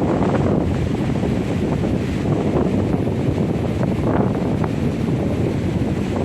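Strong monsoon wind buffeting the microphone in a steady, loud rumble, with surf washing onto the beach underneath.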